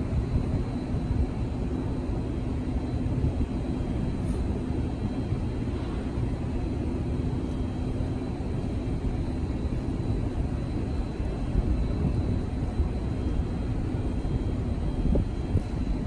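Steady low outdoor rumble, with a faint steady hum through the first half that stops about halfway through.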